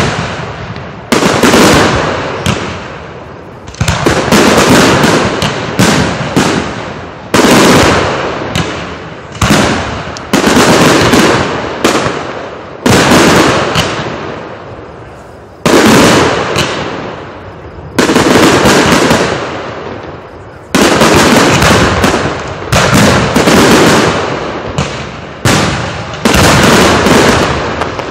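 Aerial fireworks shells bursting close by in rapid succession: more than a dozen loud booms, one every one to three seconds, each trailing off over a second or two as the next goes off.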